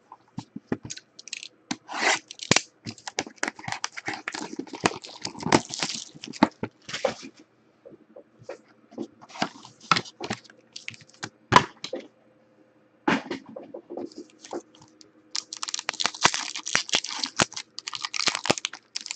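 Trading card packaging being handled and opened by hand: scattered clicks and taps of the box, then dense crinkling of a foil-wrapped card pack near the end.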